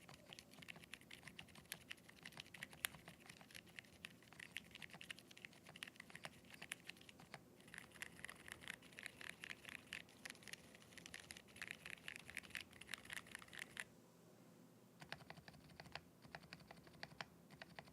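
Typing on a Kohaku mechanical keyboard with Osume switches, an aluminium plate and no foam: fast, continuous runs of key clacks. There is a pause of about a second near the end, then more typing that sounds less bright.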